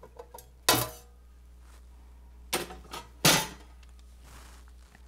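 Metal clattering as the Motorola Spectra radio's sheet-metal cover is lifted off the chassis and handled: a few small clicks, then three sharp clanks that ring briefly, the loudest about a second in and about three seconds in.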